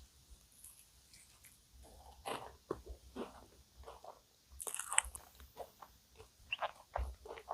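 Close-miked eating of a cookie choux cream puff: bites through its crisp cookie crust crunching, then chewing, in irregular short crackles with the loudest crunchy bite about five seconds in.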